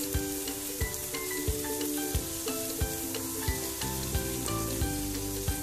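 Chopped tomatoes, onion and capsicum sizzling in butter in a pan as they are stirred with a wooden spatula, under background music with a steady beat.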